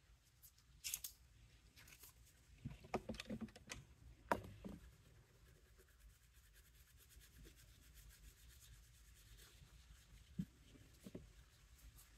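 Faint handling noise: a sponge tool rubbing and dabbing on a metal nail-stamping plate, with light clicks and knocks of the tools. The sounds cluster in the first few seconds, then it goes nearly quiet apart from two soft knocks near the end.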